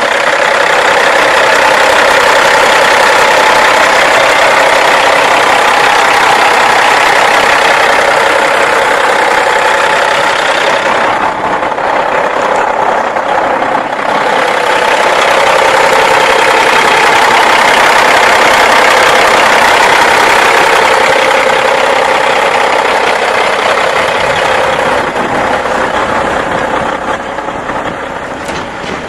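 Caterpillar diesel engine of a 1995 Ford L9000 truck tractor idling steadily with its hood open. It dips briefly partway through and fades a little near the end.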